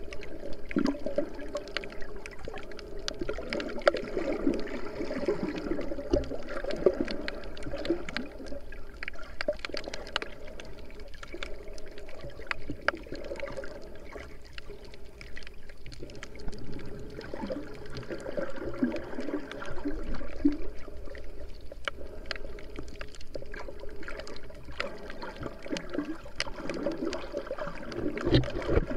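Underwater sound picked up by an action camera in its housing while snorkeling: muffled sloshing and gurgling water with many small scattered clicks and crackles.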